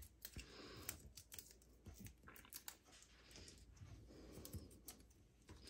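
Near silence with faint, scattered small clicks and taps from hands handling cardstock and small adhesive pieces on a desk.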